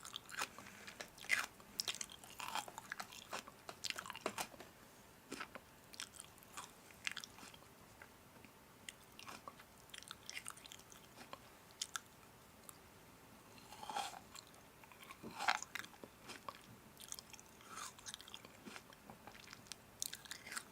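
A person biting and chewing crunchy food: irregular crunches and wet mouth clicks, thinning out in the middle and picking up again later.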